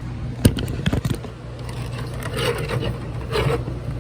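Handling noise from the alarm keypad and its wires: a few sharp clicks in the first second, then soft scraping and rubbing, over a steady low hum.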